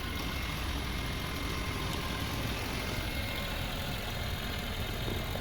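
Car engine idling steadily, a constant low rumble with no change.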